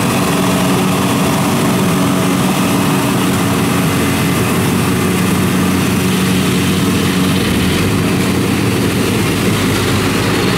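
Rice combine harvester running at working speed: a steady engine drone together with the rushing of the threshing drum, as threshed straw and chaff blow out of the rear discharge.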